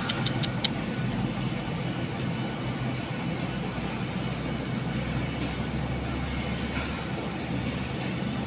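Steady low outdoor background rumble, with a few faint clicks in the first second.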